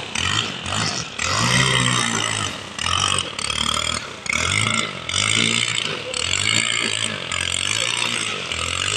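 Petrol brush cutter running and cutting grass. Its engine revs up and drops back repeatedly as the cutting head is swung through the grass.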